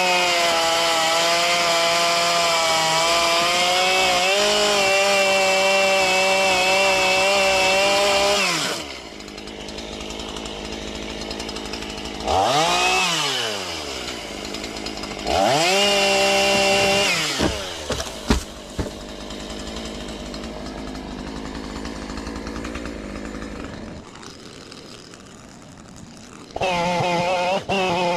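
Chainsaw with a tungsten-carbide chain at full throttle cutting hardwood for about nine seconds, then dropping to idle. It is blipped up twice, a few sharp knocks follow, and it goes back to full throttle near the end.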